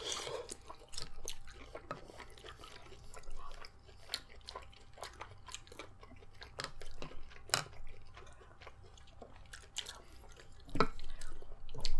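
A person chewing food close to the microphone, with scattered small clicks.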